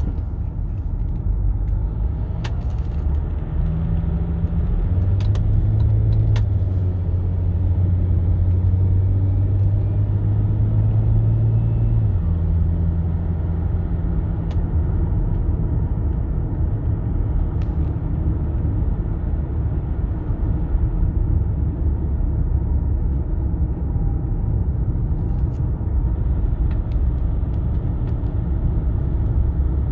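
Cabin sound of an Audi A6 C5 Allroad's 2.5 TDI V6 diesel with tiptronic automatic, driving and pulling gently, over a steady tyre and road rumble. Its low drone grows stronger and then drops in pitch about twelve seconds in. A few light knocks come through from time to time.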